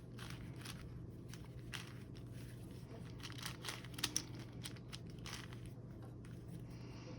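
Plastic Rubik's cube being twisted by hand: faint, irregular clicks and scrapes as the layers turn.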